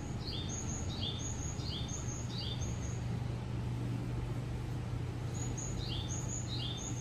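Bird-like high chirps in quick descending three-note groups, repeated about every two-thirds of a second: a run in the first three seconds, a pause, then another run from about five seconds in, over a steady low hum.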